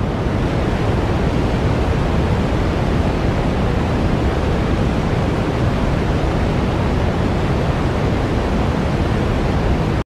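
Loud, steady rushing hiss of noise without any tone in it, heavier in the low end. It swells in just before and cuts off abruptly at the end.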